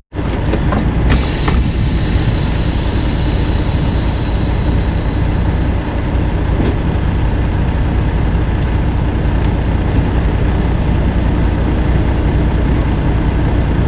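International semi truck's diesel engine running steadily, with a few clicks near the start.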